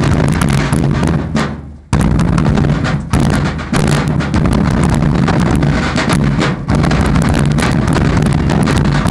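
Civil War fife and drum corps playing, with snare and bass drums beating steadily. The music fades out briefly about a second and a half in and comes back abruptly.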